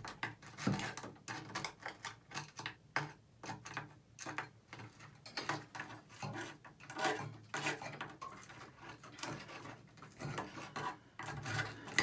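Thin metal tool scraping, rubbing and clicking inside the stem openings of a Price Pfister tub and shower valve, clearing out grout and sheetrock debris. The scrapes and clicks come in an irregular run.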